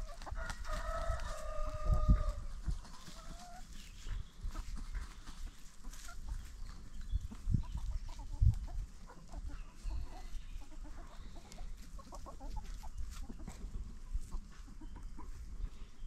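A flock of free-range chickens clucking, with a rooster crowing in one long call over the first few seconds. Low thumps are heard a few times.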